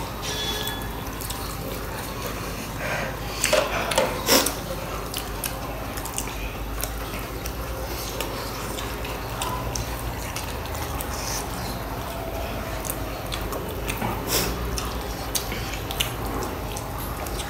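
Close-miked eating sounds: two people biting and chewing soybean momos, with scattered short wet mouth clicks and smacks over a steady background hiss. A louder cluster of smacks comes about four seconds in.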